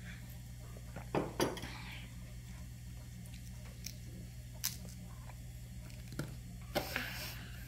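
A baby gumming and sucking on a baby snack chip with its fingers in its mouth: a handful of short wet smacks and clicks, the loudest about a second in and again near the end, over a steady low hum.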